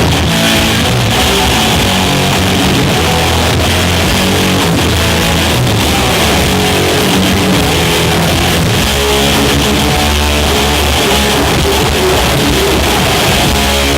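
Rock band playing loud and steady with electric guitar out front, no singing.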